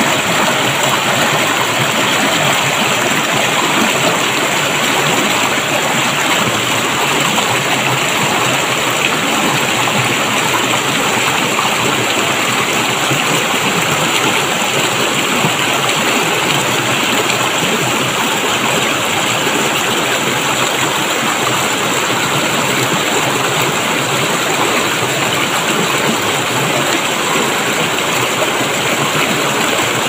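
Shallow stream rushing and splashing over rocks close by, below a small waterfall: a steady, loud rush of water.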